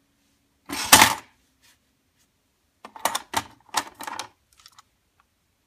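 A loud mechanical clatter from a Panasonic RS-295US cassette auto-changer about a second in, then a run of sharp plastic clacks as cassette tapes are lifted out of its open changer bay, and a few faint ticks near the end.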